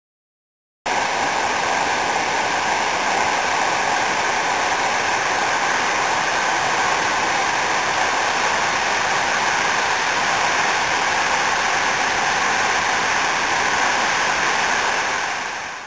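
Large waterfall pouring down a rock face: a steady rush of falling water that starts abruptly about a second in and fades out near the end.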